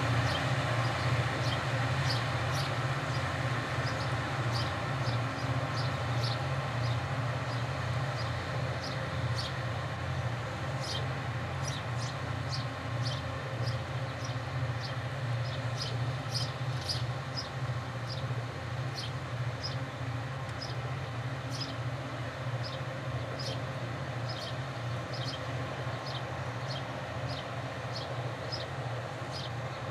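Diesel-electric locomotives of a loaded iron-ore train running with a steady low drone that slowly fades as the train draws away. Short high chirps repeat about twice a second throughout.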